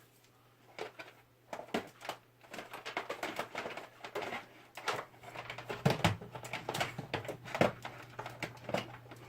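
Irregular clicks, knocks and rustling of a power cable being swapped and plugged into a desktop computer, with a few sharper knocks later on. A steady low hum runs underneath.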